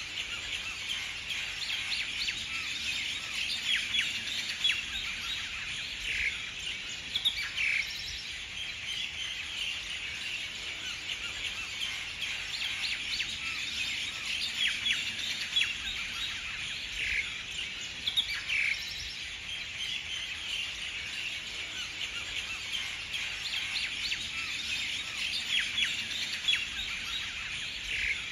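Many small birds chirping continuously, a dense background chorus, with a few louder calls standing out now and then.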